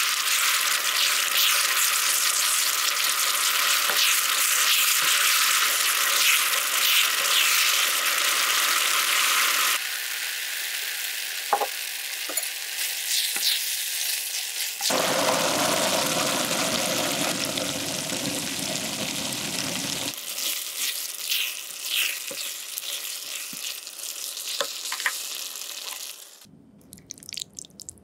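Mapo tofu sauce sizzling and bubbling in a frying pan while a spatula stirs it, with light scrapes and taps of the spatula against the pan. The sauce has just been thickened with starch slurry. The sizzling stops about two seconds before the end, leaving a few soft clicks.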